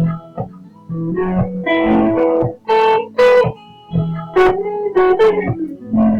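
Electric guitar playing: low, short percussive notes repeating underneath, with higher single notes ringing out over them.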